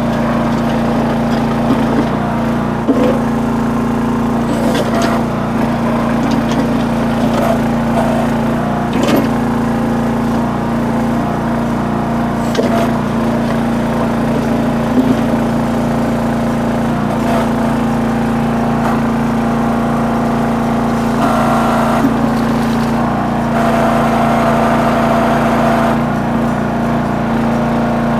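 Small engine of a towable backhoe running steadily at one speed while digging, with scattered knocks and scrapes of the bucket working in rocky ground.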